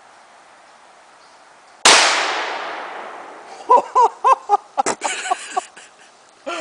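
A single loud shot from a large long-barrelled handgun about two seconds in, its echo ringing out over about a second and a half. A second or so later come short bursts of a voice reacting.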